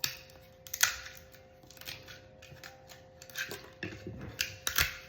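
Clicks and light knocks of 3D-printed plastic parts being handled and pressed together, a few sharp clicks with the loudest about a second in, over a faint steady hum.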